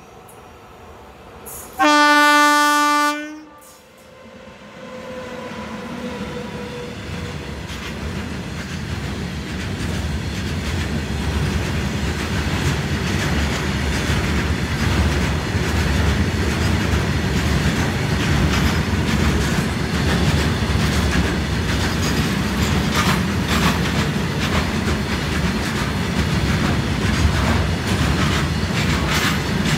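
Indian Railways WAG-9 electric locomotive sounds one long horn blast about two seconds in. Then the goods train's rumble builds steadily as the locomotive and its freight wagons roll past, the wheels clattering over the rail joints.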